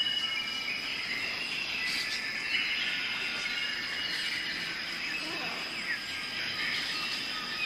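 Weaver birds chattering in a dense chorus of overlapping chirps and short whistles, over a steady high insect drone.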